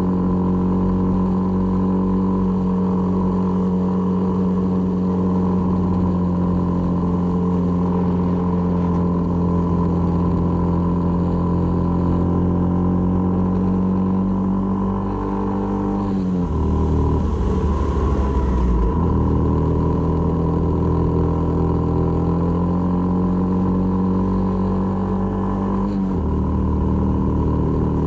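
Honda MSX125's single-cylinder four-stroke engine running at steady revs on the move. Its pitch drops about halfway through, with a brief stretch of rushing noise, then it settles back to a steady note and drops again near the end, as when shifting or easing off.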